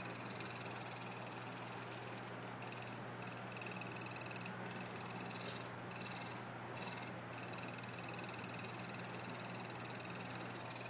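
Noctua NF-P14 cooler fan running with a loud, rapid ticking over its steady hum, the noise of a broken fan. The ticking cuts out briefly several times in the middle.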